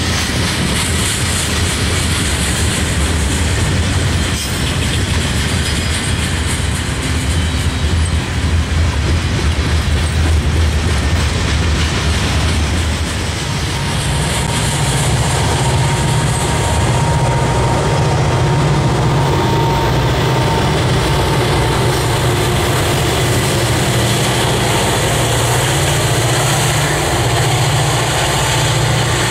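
Freight train cars rolling past with a continuous rumble and clickety-clack of wheels over rail joints. About halfway through, the low rumble changes to the steadier drone of an approaching diesel locomotive.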